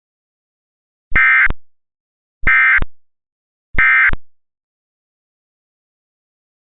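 Emergency Alert System end-of-message signal: three short, identical bursts of buzzing digital data tone (the SAME "NNNN" code), each under half a second, about a second apart. They mark the end of the alert.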